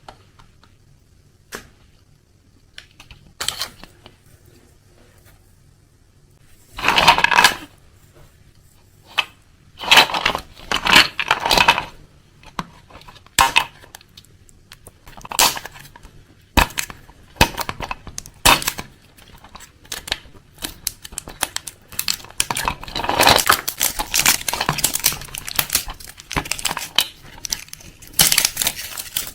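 Irregular clicks, taps and short rustling scrapes of small objects being handled, sparse at first and growing denser after about seven seconds.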